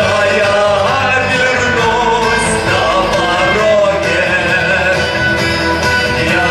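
A song performed live: a voice singing over a band accompaniment.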